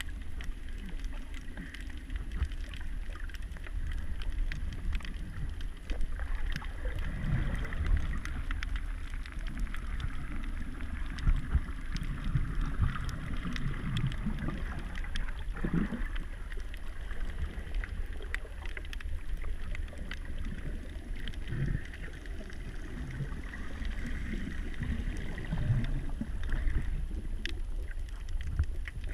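Underwater ambience as heard by a camera in its waterproof housing: a steady low rumble and water surges, with many scattered crackling clicks.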